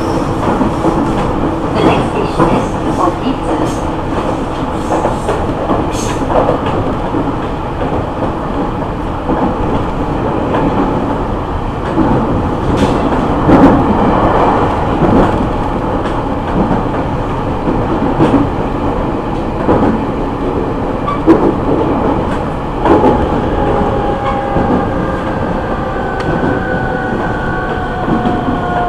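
JR East E501 series electric train running, heard from inside a motor car: a steady rumble with wheels clicking and knocking over rail joints. From about three quarters of the way in, a whine from the Siemens VVVF inverter and traction motors slides down in pitch as the train slows.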